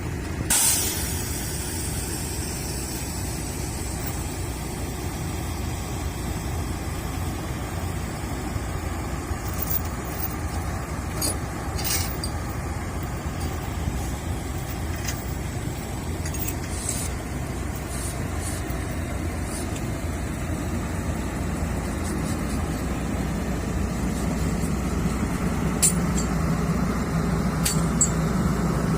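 Heavy diesel machinery running steadily with a low drone, with a short burst of hissing air about half a second in and a few sharp clicks and knocks later on.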